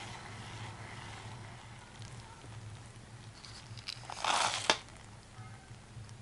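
Sliced almonds poured from a bowl into a small enamel saucepan of bubbling butter-sugar mixture: a brief rustling clatter about four seconds in, ending with a sharp tap. Faint fizzing of the simmering mixture underneath.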